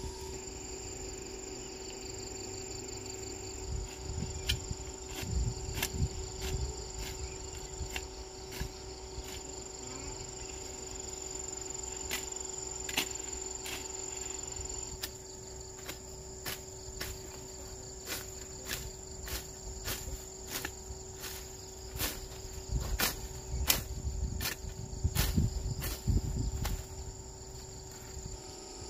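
A steady chorus of insects with several held tones and a run of short, evenly repeated chirps that quickens in the second half. Low rustling of grass and weeds being pulled up by hand comes and goes, loudest near the start and again near the end.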